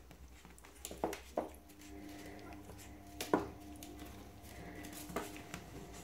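A handful of short, sharp knocks and taps, the loudest about three seconds in, over a faint steady hum that comes in after about a second and a half.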